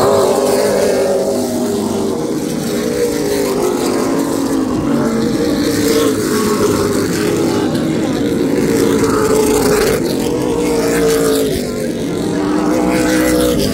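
Several race car engines running together on a track, their pitch rising and falling as they go.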